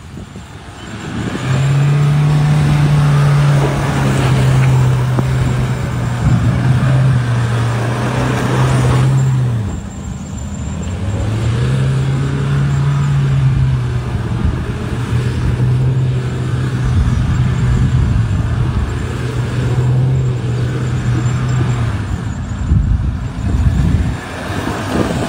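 Mahindra Thar's engine revved hard and held at high revs while its wheels spin in soft soil, in two long pulls, the revs dropping away briefly about ten seconds in and falling off again near the end.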